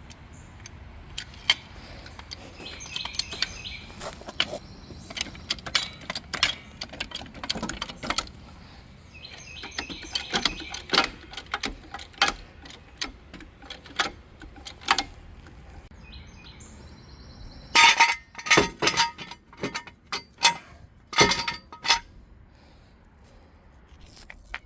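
Irregular sharp metallic clicks, clinks and knocks, like hand tools and parts being handled, with birds chirping in three short spells.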